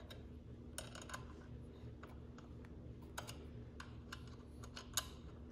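Faint, scattered small metallic clicks and ticks from a hex key and brake cable being handled at a bicycle rim-brake arm, as a stretched brake cable is pulled taut and its anchor bolt tightened. A faint steady low hum runs underneath.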